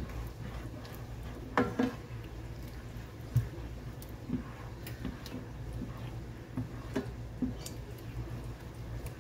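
Slotted spatula stirring and scraping thick tomato-paste sauce with diced bell pepper in a nonstick skillet: wet squishing with irregular light knocks of the spatula against the pan. A steady low hum runs underneath.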